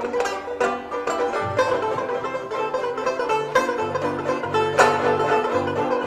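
Background music with quickly picked strings over a bass line, in a bluegrass style.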